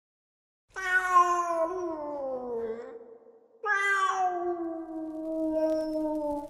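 A domestic cat meowing twice: two long meows, each sliding down in pitch, the second one longer.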